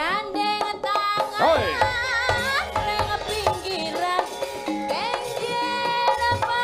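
Javanese gamelan music: steady ringing metallophone tones and kendang drum strokes, with a woman singing in long gliding, wavering notes.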